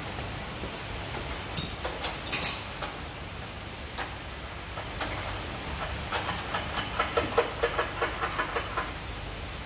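Wascator FOM 71 laboratory front-loading washing machine running with a steady hiss. Two sharp clicks come a couple of seconds in, then rapid, irregular clicking from about six seconds in.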